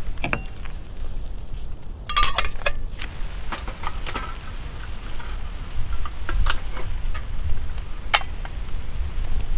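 Wind buffeting the microphone as a steady low rumble, with scattered light clinks and taps of cooking gear: a quick cluster about two seconds in, then single clicks every second or two.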